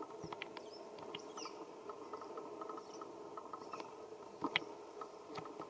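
Faint outdoor background: a steady low hum with scattered small clicks and a few short high chirps, and two sharper clicks about four and a half seconds in.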